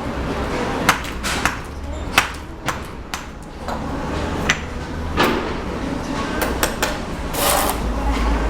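Bricklaying at work: a mason's hand tools tapping and knocking on cement bricks and mortar, about a dozen sharp irregular knocks.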